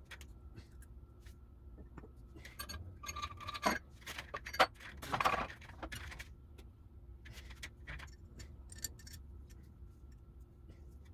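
Small metal manual-transmission parts, a gear with its bearing and a brass ring, clinking and scraping as they are handled, with a cluster of louder clinks in the middle.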